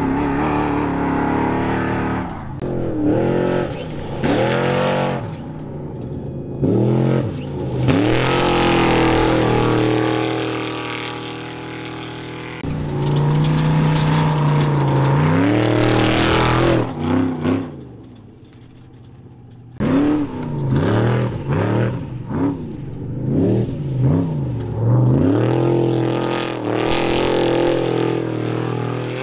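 Off-road race trucks' engines revving hard, climbing and dropping again and again as they shift and pass close by, with a loud rush at each close pass, about 8, 16 and 27 seconds in.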